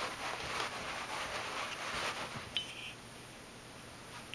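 Scuffling and rustling on carpet as a kitten tussles with a sock puppet, fading out after about two and a half seconds. A short high tone follows.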